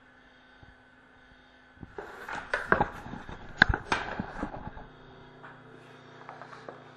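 Handling noise: about three seconds of knocks, clicks and rubbing, one sharp click the loudest, as the camera is moved and a boxed hockey card box is handled. After that a low steady hum with a few faint taps.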